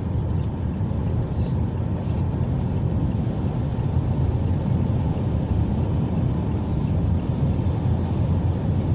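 Steady low road and engine noise of a moving Mazda car, heard from inside the cabin.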